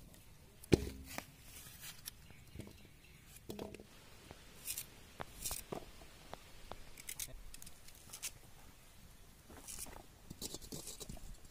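Curved iron knife cutting raw potato and shallots: sparse crisp cuts and small knocks, with one louder thump about a second in.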